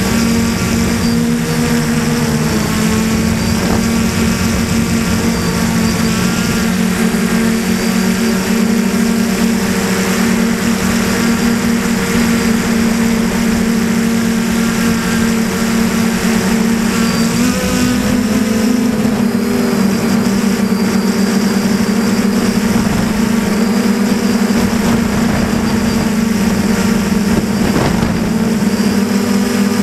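DJI Flamewheel 450 quadcopter in flight, heard from a camera on its own frame: the brushless motors and propellers make a loud, steady buzzing hum. Its pitch shifts slightly a few times as the throttle changes.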